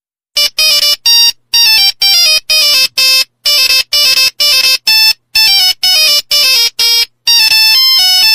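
Electronic beeping tune: a quick run of short, bright synth notes, about two a second, stepping up and down in pitch, ending in a longer unbroken phrase.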